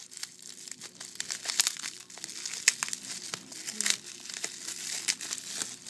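Clear plastic bubble-wrap pouch crinkling in the hands as it is worked open, with many irregular sharp crackles.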